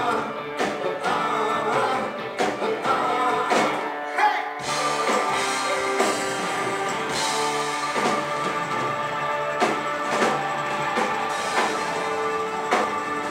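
Live rock band playing: electric guitars, drum kit and a lead vocal, heard from among the audience in a small club. About four and a half seconds in, the music settles into steadier held chords under regular drum hits.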